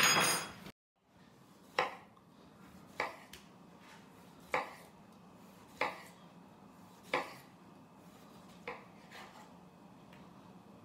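Kitchen knife slicing a tomato on a bamboo cutting board, knocking on the board at each stroke, six or seven times at a slow even pace. A brief clatter at the very start.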